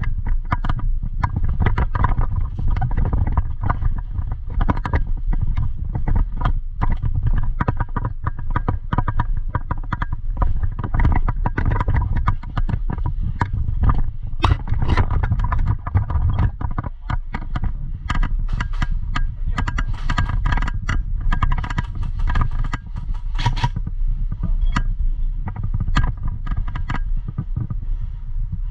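Movement and handling noise on a body-worn GoPro: a continuous low rumble with many irregular clicks and scrapes.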